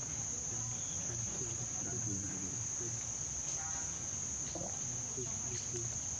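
Steady, high-pitched chorus of insects in the trees, running without a break.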